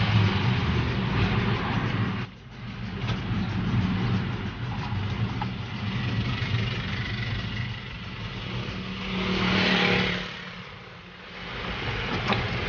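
A motor engine running steadily with a low hum, under a rush of noise that dips briefly about two seconds in and swells again near ten seconds.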